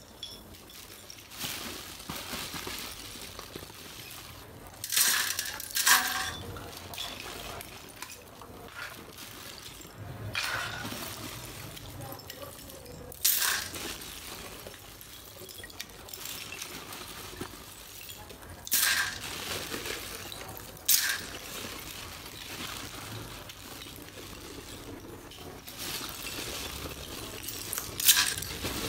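Hard, brittle shards of roasted multani mitti (fuller's earth clay) dropped and shuffled by hand into a perforated steel sieve: sharp clinks and clatters of clay on metal, about half a dozen loud ones spread through, with quieter rustling and scraping of the pieces between them.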